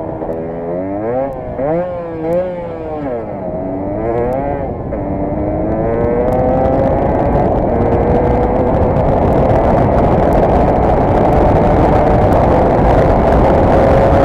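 Yamaha DT125R's two-stroke single-cylinder engine on the move, its note rising and falling for the first few seconds, then holding a steady higher pitch. A rush of wind and road noise grows as the bike picks up speed.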